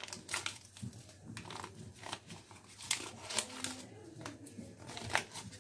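Small packet of baking powder crinkling as it is held open, squeezed and shaken out over a mixing bowl: a scatter of sharp crackles.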